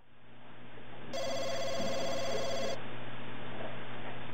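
Electronic telephone ringing: one warbling two-tone ring, about a second and a half long, starting about a second in, over a steady low hum.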